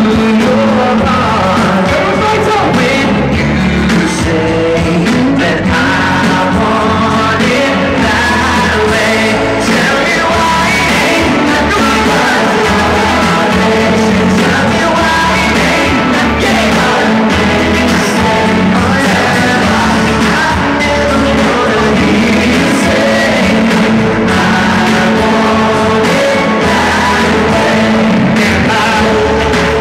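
Live concert music over a stadium sound system: a vocal group singing into microphones over an amplified backing track with a steady beat.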